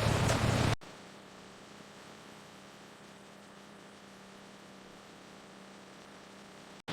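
A loud rushing noise cuts off abruptly under a second in, leaving a faint, steady electrical hum over low hiss.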